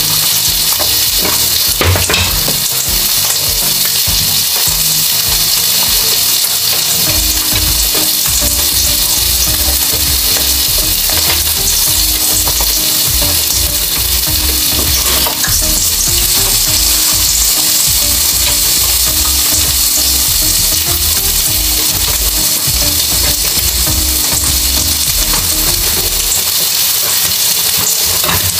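Pork steak sizzling steadily on an electric grill plate, a continuous high hiss, with chewing close to the microphone.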